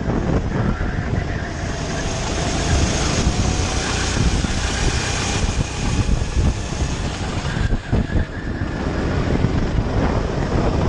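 Daytona rental kart's engine running at racing speed from the kart itself, its note faint and wavering under heavy wind buffeting on the microphone.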